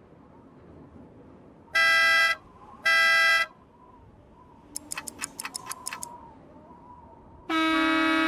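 Cartoon toy-car horn honking twice in short blasts, then a quick run of sharp clicks, then a deeper horn sounding a longer blast near the end.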